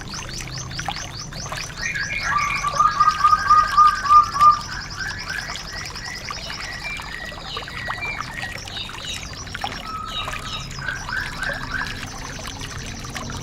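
Songbirds singing: a fast high trill repeats through most of the stretch. About two seconds in, a loud run of quick, lower whistled notes joins it and stops near the middle, followed by scattered short chirps.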